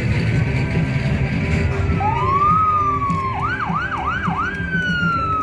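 A siren sweeping: a slow rise and fall about two seconds in, then four quick whoops, then a long falling tone. Under it runs the low rumble of slow-moving parade vehicles.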